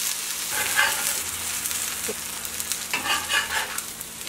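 Shredded cheese and a tortilla sizzling and crackling in a little oil on a hot griddle (comal). Near the end a spatula scrapes the griddle as the tortilla is lifted off.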